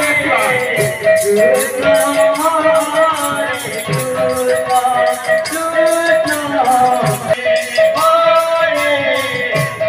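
Sankirtan devotional music: a voice singing over a fast, steady beat of hand cymbals, about four strokes a second.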